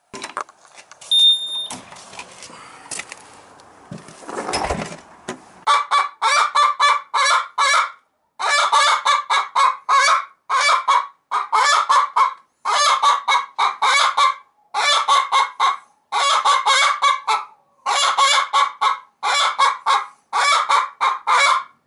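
A barred hen in a nest box cackling loudly in rapid bursts, about one burst every two seconds from around five seconds in: the hen's egg song. Before that, a few knocks and rustles and a dull thump.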